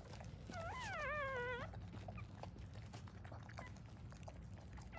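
A newborn puppy crying once, a high-pitched mewing squeal of about a second that wavers up and then slides down, starting about half a second in.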